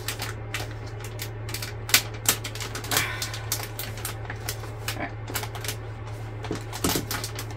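Flexible, still-tacky resin sheet crackling and clicking irregularly as it is pressed and bent by hand over a form, with a few sharper clicks, over a steady low hum.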